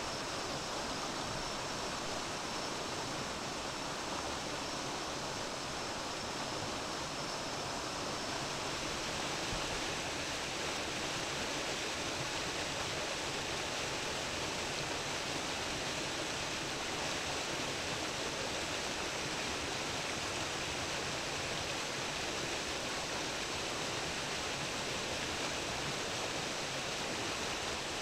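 Mountain stream flowing, a steady, even murmur and rush of water.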